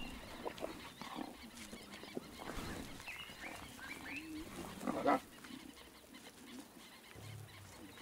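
Lions feeding on a warthog carcass: quiet chewing and tearing of meat, with a short low growl about five seconds in.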